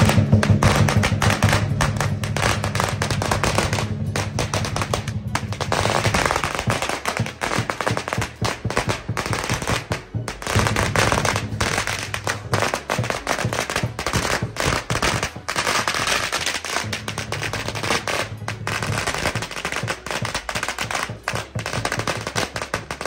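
Lion dance drum and cymbals beating. About six seconds in a long string of firecrackers joins them, popping rapidly in a dense crackle that runs on over the drumming.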